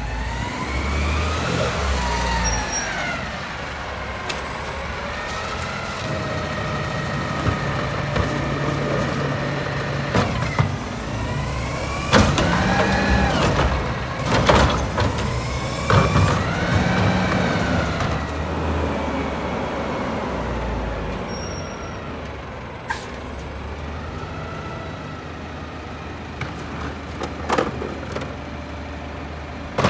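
Mack LEU garbage truck's diesel engine running and revving up and down several times as it drives the hydraulics, with a whine that rises and falls with it. About twelve to seventeen seconds in come sharp clanks and bangs as the carry can's tipper dumps a trash cart.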